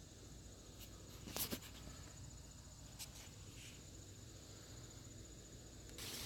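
Faint work sounds while engine parts are being fitted: a brief clatter about a second and a half in and a light tick at about three seconds, over a faint steady high-pitched tone.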